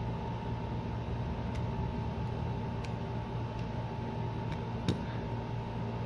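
A steady low hum with a thin, high steady tone over it, and a few light clicks and taps as an opened Samsung Galaxy Note 10 Lite phone is handled on a silicone work mat; the sharpest tap comes about five seconds in.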